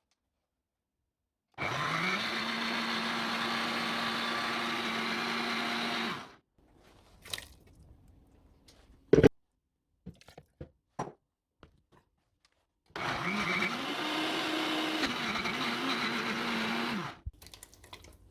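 Blender motor puréeing roasted pumpkin and vegetable stock into soup, run in two bursts of about four to five seconds each; the pitch climbs as the motor spins up, and on the second run it wavers as the load shifts. Between the runs come a few light clicks and one loud, sharp knock.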